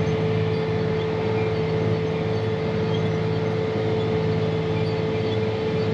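John Deere 8235R tractor's six-cylinder diesel running steadily under load while pulling a chisel plow through corn stalks, with a steady whine over the engine drone.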